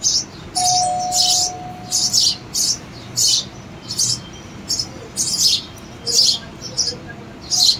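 Sparrow chicks in a nest box giving short, high, repeated begging chirps, about two a second, as an adult feeds them at the entrance hole.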